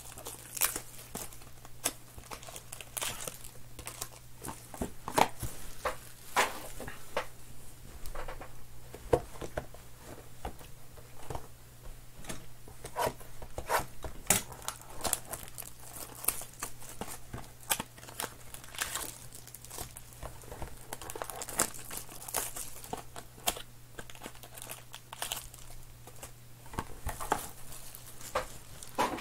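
2020-21 Panini Absolute Basketball card packs being handled and torn open: the wrappers crinkle and tear, and the cards are shuffled and set down. It makes a continuous run of sharp crackles and clicks.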